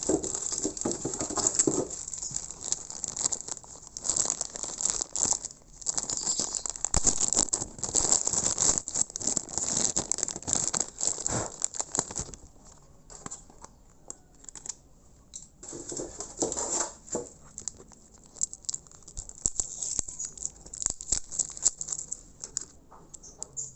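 Plastic packaging being handled: irregular crinkling and rattling, busy for the first half and sparser afterwards.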